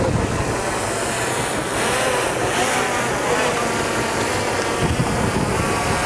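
A motor running steadily with a humming pitch that wavers slightly, over a constant hiss.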